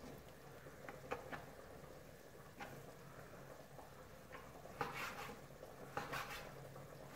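Kitchen knife slicing guanciale into strips on a wooden cutting board: faint, scattered cuts and taps of the blade against the board, a few clustered around five and six seconds in.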